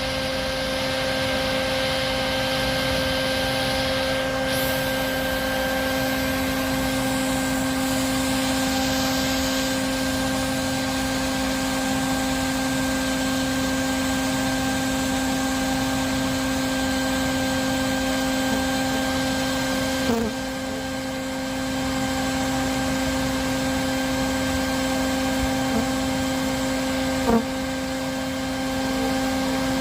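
Vacuum with a hose running steadily, an even motor hum over rushing air, of the kind used to suck up honeybees during a hive removal. Two brief knocks come about twenty and twenty-seven seconds in.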